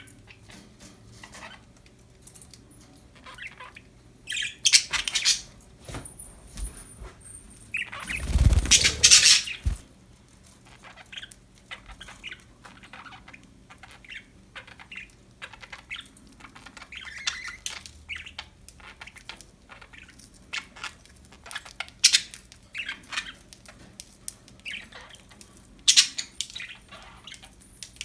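Budgies chirping and squawking in short, scattered calls, with one louder, noisier burst lasting about a second and a half roughly a third of the way in.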